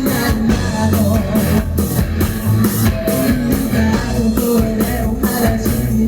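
Rock music without vocals: electric guitar and drum kit playing a steady, evenly spaced beat.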